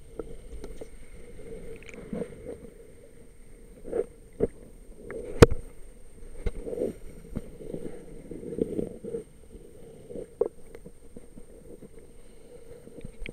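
Muffled underwater handling noise from a camera in a waterproof housing: irregular dull knocks and rumbles, with one sharp click about five and a half seconds in. A faint steady high whine runs underneath.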